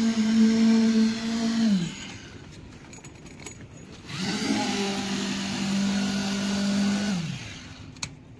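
Concrete needle vibrator compacting fresh concrete, its motor humming steadily. It winds down with a falling pitch about two seconds in, spins back up after a short pause about four seconds in, and winds down again near the end.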